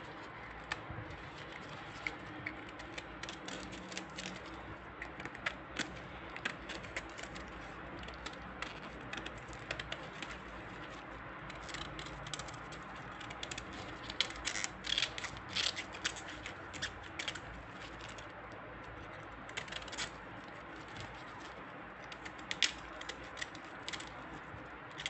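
Tough outer leaves being snapped and cut off an artichoke by gloved hands: irregular short crisp snaps and scrapes, busiest about halfway through.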